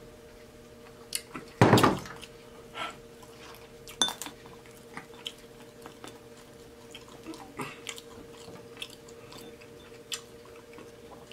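Close-miked eating sounds: scattered wet mouth clicks and chewing, with one much louder thud about two seconds in. A faint steady hum runs underneath.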